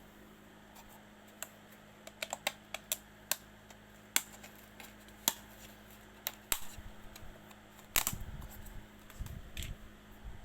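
Irregular light clicks and taps, about a dozen spread unevenly, the loudest one about eight seconds in, over a faint steady hum.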